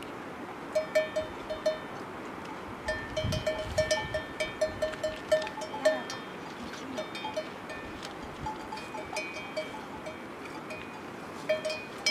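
Hand milking of a water buffalo: streams of milk striking a metal vessel with short ringing pings, in uneven runs of about two to four a second, busiest in the middle and again near the end.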